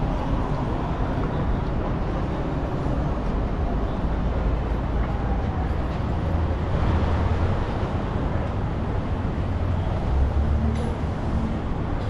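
City street traffic noise: a steady hum of passing vehicles, with a heavier low rumble swelling about halfway through and again near the end.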